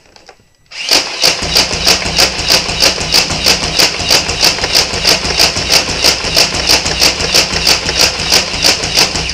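Nerf Vulcan EBF-25 belt-fed dart blaster firing full-auto on its battery-powered motor: a motor drone with a steady, even clacking of the firing mechanism, about four clacks a second. It starts about a second in and cuts off near the end.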